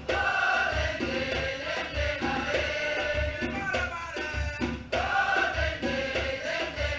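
Batucada samba music: voices singing over a steady low bass-drum beat, a little under two beats a second.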